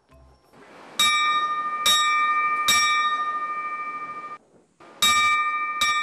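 A house's mealtime bell, a hanging metal bell, struck three times in quick succession, its tone ringing on and fading, then cut off and struck twice more near the end. It is rung to call the household and the fishing crew to eat.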